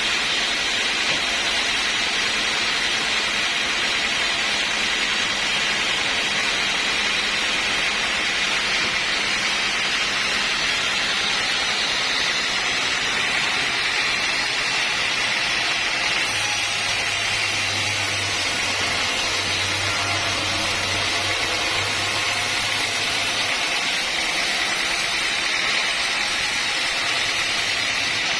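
Sawmill machinery running with a steady, hissing whir. A low hum joins about halfway through and drops out a few seconds later.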